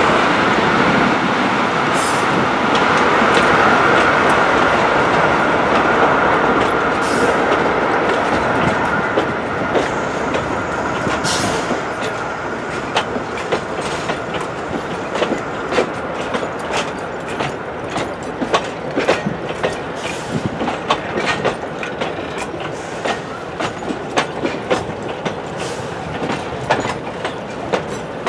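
Heritage passenger train passing slowly at close range. At first the diesel locomotive and the leading wagons give a steady, loud running noise. This fades after about ten seconds, and the passing coaches' wheels then click frequently over the rail joints.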